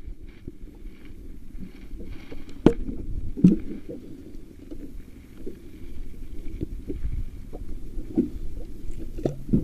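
Steady low rumble of water and wind around a small boat at sea, with two sharp knocks close together about three seconds in.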